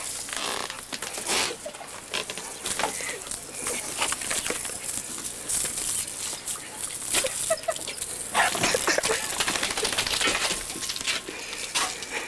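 A dog leaping and biting at the spray from a garden hose, making a few short vocal sounds about halfway through, over the hiss and splatter of the water.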